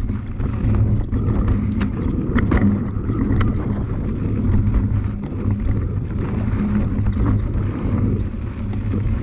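Bike being ridden down a rough, loose trail: wind rushing over the microphone and tyre noise, with scattered sharp knocks and rattles from the bike over the bumps.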